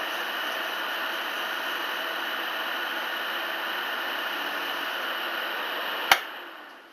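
Half-horsepower two-pole single-phase induction motor running steadily, spinning an engine valve in a drill chuck while wet-and-dry paper rubs on the valve stem. About six seconds in there is a sharp click, and the sound then dies away quickly.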